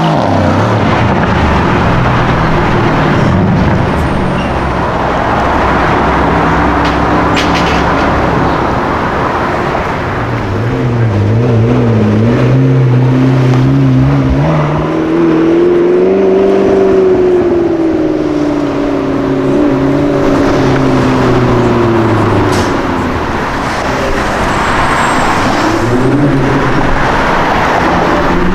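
Car engines running on the street, their pitch holding steady, then rising and falling slowly as they speed up and ease off. Near the end an engine accelerates, its pitch climbing.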